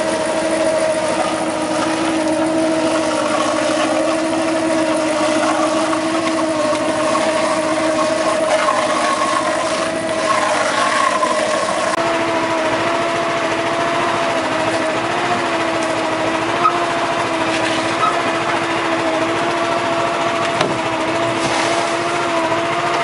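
Lobster boat's engine running steadily under way, a steady droning whine that steps up slightly in pitch about halfway through.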